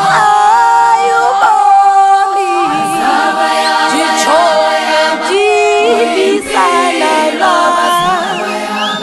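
Unaccompanied choir singing: several voices holding long notes and moving between them, with no instruments.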